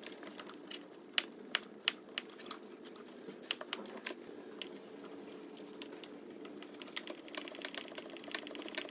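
A hand spanner working the top 13 mm bolt of the auxiliary belt tensioner: scattered sharp metal clicks and clinks, then a fast run of small, even clicks near the end. A steady low hum lies underneath.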